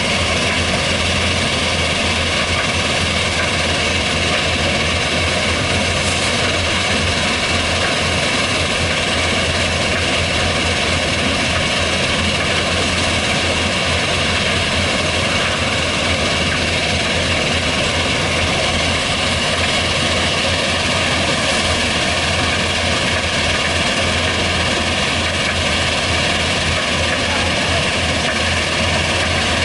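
Heavy diesel machinery running with a steady, unbroken drone and hiss that holds the same pitch and level throughout.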